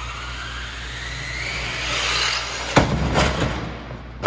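RC monster truck's electric motor whining as it accelerates, rising in pitch for about two seconds. Then come a couple of sharp knocks and clatter as the truck lands in and against the garbage can, with another hit at the very end.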